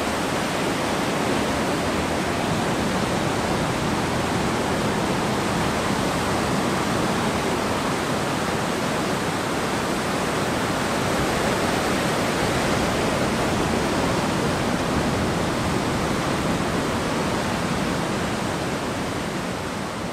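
Ocean surf: waves breaking and whitewater washing toward shore, a steady rushing noise that begins to fade near the end.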